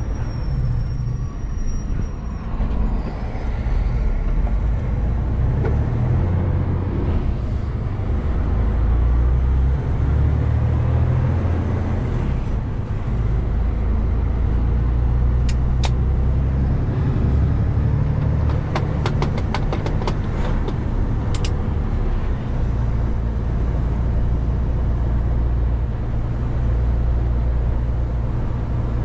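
Mercedes-Benz Actros 1851 truck's straight-six diesel engine running on the road, heard from the cab; its low drone shifts level several times with throttle and gear changes. A short run of quick ticks comes about two-thirds of the way through.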